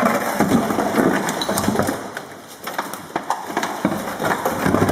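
Irregular, rapid knocking and clattering of hard objects, busiest in the first two seconds and again toward the end.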